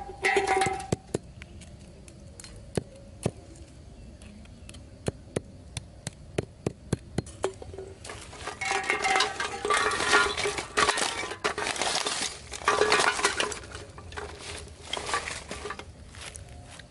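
Aluminium drink cans and wire being handled on hard dirt: a string of sharp clicks and clinks, then, from about halfway, longer bouts of scraping and rattling with a faint ringing tone.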